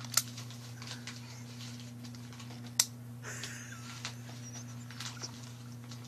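A baby handling and mouthing a small plastic toy: scattered sharp clicks and light taps, two louder ones near the start and about halfway, with a short baby coo just after the halfway click, over a steady low hum.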